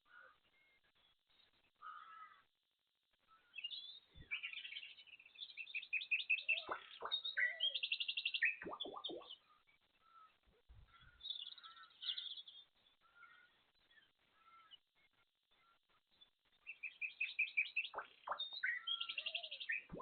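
Small birds chirping and singing, in bursts of rapid trilled notes around six to nine seconds in and again near the end, with quieter gaps between.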